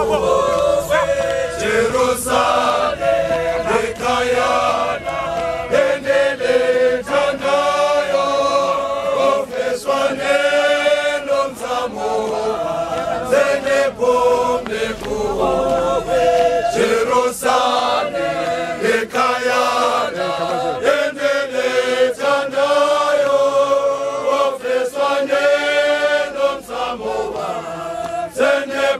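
A large group of church marchers singing a hymn together as they walk, a continuous chant-like choral song.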